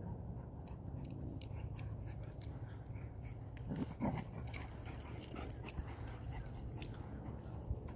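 Dogs at play on grass, with a short low dog vocalisation about four seconds in, over a steady low rumble and scattered small clicks.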